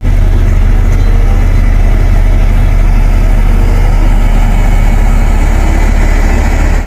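LiuGong single-drum road roller running as it drives over loose soil: a steady, loud, deep engine rumble.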